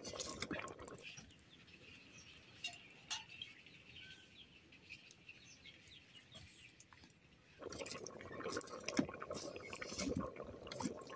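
Water heating in a metal cooking pot over a wood fire, bubbling with small ticks and crackles, while birds chirp in the background. The bubbling falls away about a second in and comes back about two-thirds of the way through.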